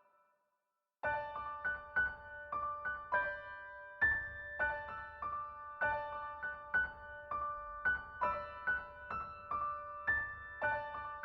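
Background music: a gentle piano melody of single struck notes, about two a second, starting about a second in after a brief silence.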